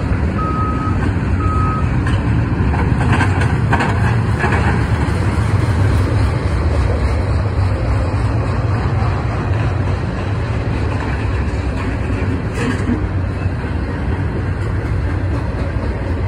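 Steady rumble of a double-stack container freight train passing, mixed with a Cat excavator's diesel engine running nearby. A backup alarm beeps twice in the first two seconds, then stops.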